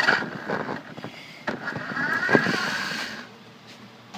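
Toy RC truck's electric motor and gears whining as it speeds up and slows down, twice, with a few knocks from the truck's body or wheels. The sound fades out near the end.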